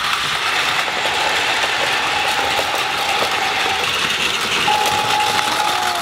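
Battery-powered Plarail toy trains running on plastic track with a steady whir of their small motors and gears. Electronic tones from the DX Crossing Station's sound unit sound over it, one held for about two seconds in the middle and another starting near the end.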